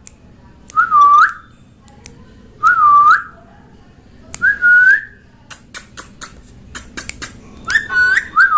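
Pet parrot whistling a short swooping note, dipping then rising, repeated five times at roughly two-second intervals, the last two close together. Light clicks come between the fourth and fifth whistles.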